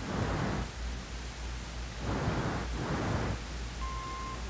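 Steady hiss and rumble of an old, worn soundtrack recording, swelling and fading about once a second over a low mains hum. About four seconds in, a short steady beep sounds: the advance cue tone that signals the next frame of a slide or filmstrip program.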